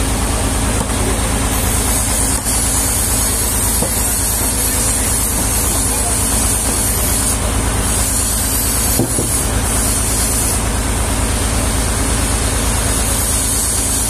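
Sawmill engine running steadily with a fast, even throb. Over it a hose nozzle hisses on and off in spells, blowing sawdust off the slab.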